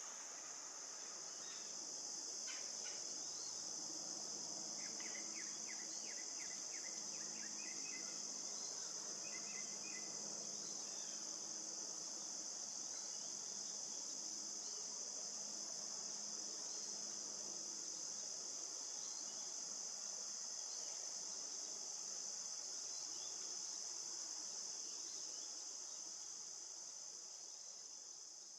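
Steady, high-pitched chorus of insects running without a break, with a few faint short chirps about five to eleven seconds in. The chorus fades near the end.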